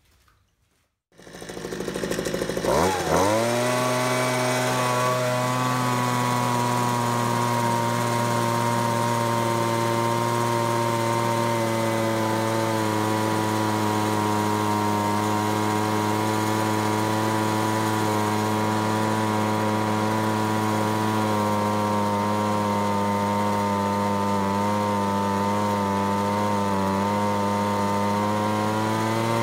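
Two-stroke handheld leaf blower engine running steadily at an even speed. It is fuelled with straight gasoline and no mix oil, so the engine is running without lubrication. The engine comes in about two seconds in, rises, settles, then holds one steady note with a slight waver.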